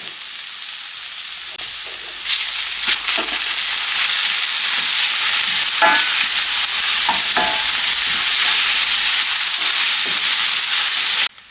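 Chopped onions and scallions sizzling in hot olive oil as they saute in a pan. The sizzle grows louder about two seconds in and cuts off suddenly near the end.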